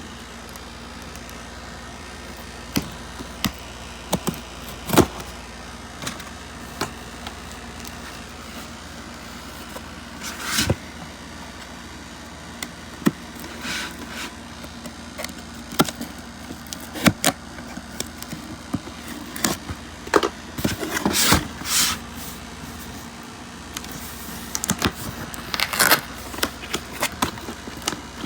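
A cardboard tool box being opened and handled: scattered knocks and clicks, with a few short bursts of cardboard and packaging rustling.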